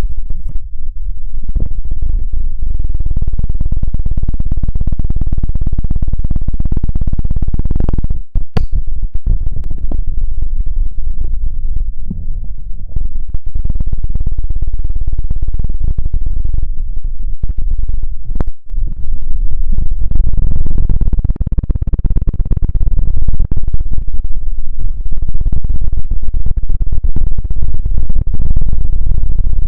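ASMR trigger of rapid close-up rubbing against the microphone, a dense low rumbling crackle that drops out briefly twice, about 8 and 18 seconds in.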